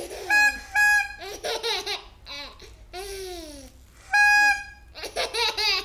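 Plastic toy shofar blown in short, steady, high-pitched toots: two quick ones near the start and a longer one about four seconds in. A baby laughs out loud after each toot.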